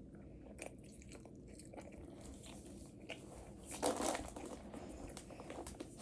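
Close-miked mouth sounds of someone chewing and biting food, with small wet clicks throughout and a louder burst about four seconds in.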